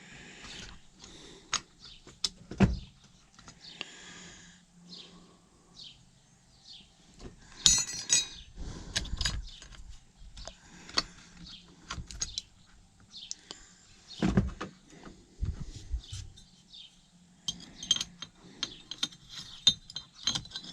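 Hand work on a steering column: scattered clicks, knocks and metallic clinks of small parts and tools being fitted, with a short jangling rattle about eight seconds in and a run of light clinks near the end.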